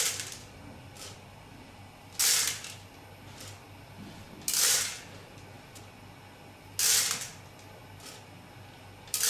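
Tablets tumbling in the rotating acrylic drum of a Copley FR-1000 friability tester turning at 25 rpm: a short rattling clatter as the tablets drop inside the drum once per turn, about every 2.3 seconds, with fainter clicks between.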